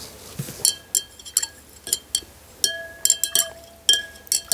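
Glass stirring rod clinking against the inside of a glass beaker while stirring a nitrate solution with water just added. Irregular clinks come two or three a second, each with a short glassy ring.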